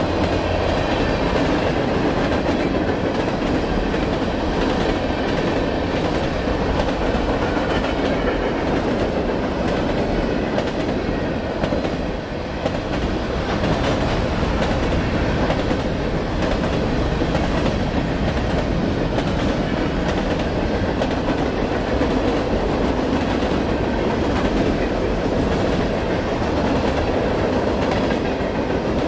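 A BNSF mixed freight train rolling past, its cars' wheels clacking steadily over the rail joints in a continuous rumble.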